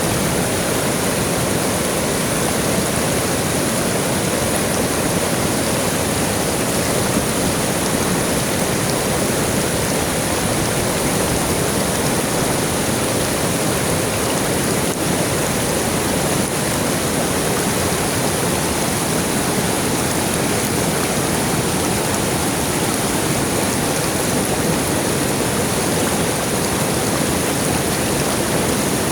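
River water flowing over rocks, a steady rushing and babbling that does not change.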